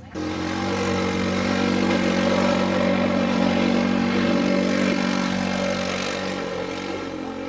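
ATV (quad bike) engine running hard under load as it climbs a dirt slope, a steady drone that comes in sharply at the start and eases off slightly near the end.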